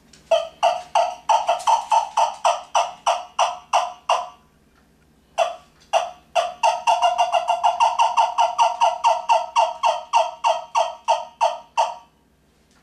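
Deadly Attraction Game Calls yelper, a trumpet-style turkey call played by drawing air back through it, sounding the excited yelp of a hen turkey. A run of about a dozen sharp yelps, a short pause, then a longer and faster run of yelps.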